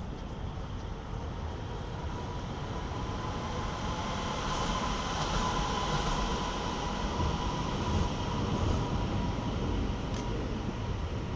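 A vehicle passing: a rumble with a steady whine that swells toward the middle and eases off again.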